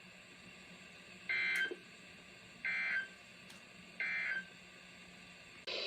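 Three short, identical screeching data bursts of an Emergency Alert System SAME header on NOAA Weather Radio, each under half a second and about 1.3 s apart, the coded header that opens a new alert. Near the end a louder, noisier sound starts.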